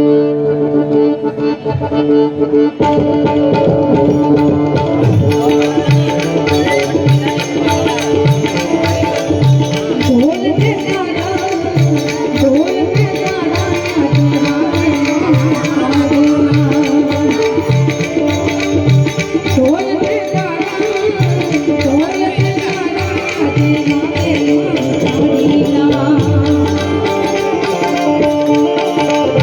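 Indian folk music, played loud: a hand drum beats an even rhythm under steady held notes, with a melody line that slides in pitch now and then.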